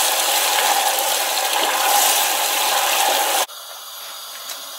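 Tomato sauce sizzling in oil in a saucepan as it is stirred with a wooden spatula, a steady hiss that cuts off abruptly about three and a half seconds in.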